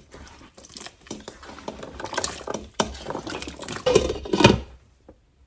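Chunks of potato, chayote squash and carrot dropped into a pot of simmering beef soup, with irregular splashes and the clatter of a utensil against the pot. The loudest splash comes about four seconds in, and the sound then cuts off suddenly.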